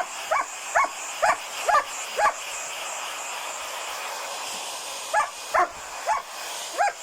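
German shepherd puppy barking at a running hair dryer: a quick run of about five high, yappy barks, a pause of about three seconds, then four more. The hair dryer blows steadily underneath.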